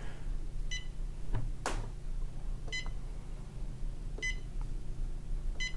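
Humminbird Helix 10 fish finder giving four short, identical electronic beeps about one and a half to two seconds apart as its keys are pressed during start-up, with a couple of sharp clicks and a steady low hum underneath.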